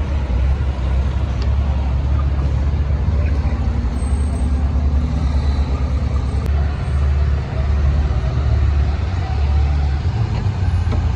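Street traffic with a car engine running close by: a steady, continuous low rumble.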